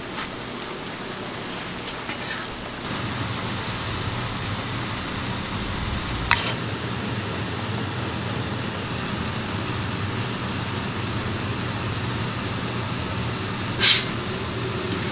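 A steady background rumble with a low hum, louder from about three seconds in, with two sharp clicks of metal tools on the board, about six seconds in and near the end.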